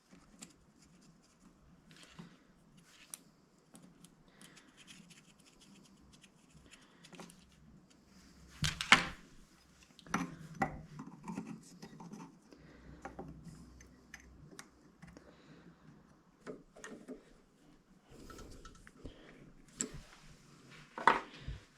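Light clinks, scrapes and taps of a small piece of steel plate and hand tools being handled on a workbench, with a sharper knock about nine seconds in.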